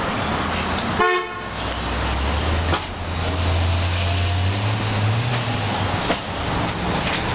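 Street sounds: a short vehicle horn toot about a second in, then a vehicle engine running low and steady. A couple of sharp knocks are heard.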